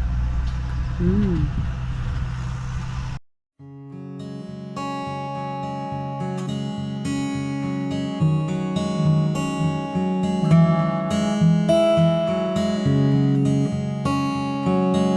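A tractor engine running steadily for about three seconds, then an abrupt cut to strummed acoustic guitar music.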